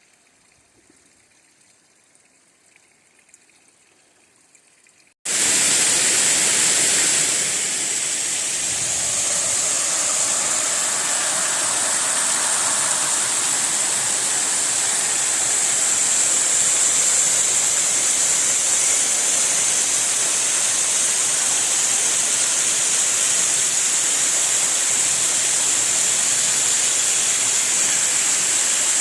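Near silence for about five seconds, then a sudden cut to the loud, steady rush of a waterfall.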